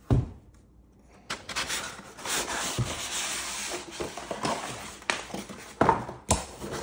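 Cardboard shipping box and paper packing being handled. A thump at the start, then a few seconds of rustling and scraping of paper and cardboard, then three sharp knocks near the end as moulded pulp inserts are moved and set down.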